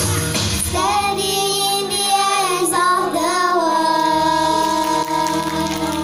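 Girls singing into microphones over a backing track, a melody that settles about halfway through into one long held note.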